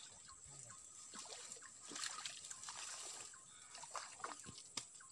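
Faint splashing at the water's surface with scattered light ticks and rustles, a little louder about two seconds in.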